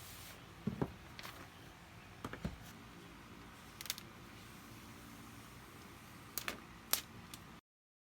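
Faint scattered taps and clicks of objects being handled over a low hiss, cutting to dead silence near the end.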